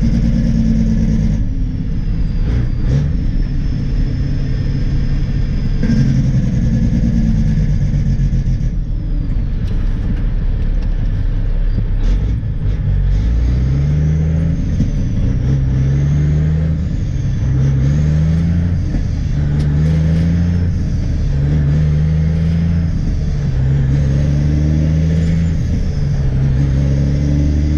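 Dump truck's diesel engine heard from inside the cab while driving, running steadily with scattered clunks and rattles at first. From about halfway it revs up in short repeated steps, the pitch rising and then dropping back every second or two as the driver shifts up through the gears of a manual truck transmission.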